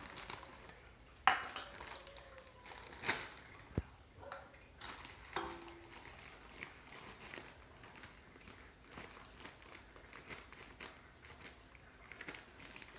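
Plastic bag of brown sugar crinkling and rustling as it is opened and handled, with a couple of sharper clicks about a second and three seconds in.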